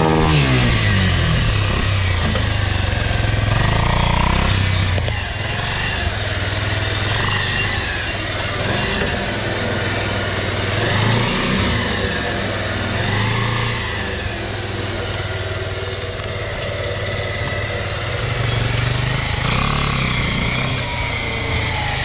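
Homemade three-wheeler's 150cc single-cylinder motorcycle engine running under load off-road: it drops from a high rev at the start, then rises and falls with the throttle.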